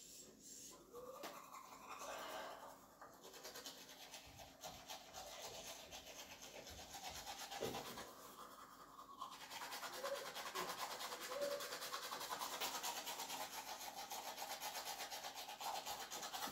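Toothbrush scrubbing teeth with quick back-and-forth strokes. The strokes become faster and more continuous about halfway through.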